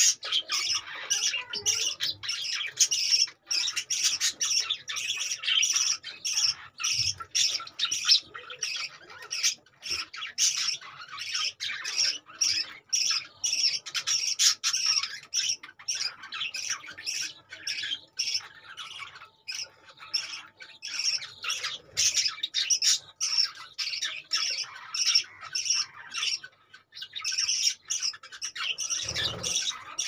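Budgerigars chattering: a steady stream of rapid, short, high chirps and squawks from several birds at once.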